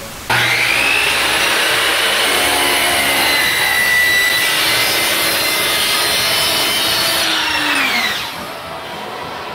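Sliding miter saw switched on and cutting through plywood: a loud motor and blade whine that starts abruptly, runs steady, then falls in pitch as the blade winds down near the end.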